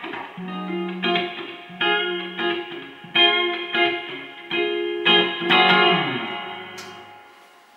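Electric guitar picking the closing phrase of a song: a run of ringing chords and notes, the last chord fading out near the end as the song finishes.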